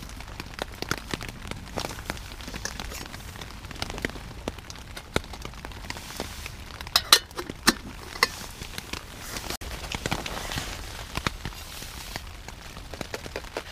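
Rain pattering on the tent fabric as scattered small ticks, with a few sharper clinks and knocks about halfway through as the metal cooking pot and mug are handled on the camp stove.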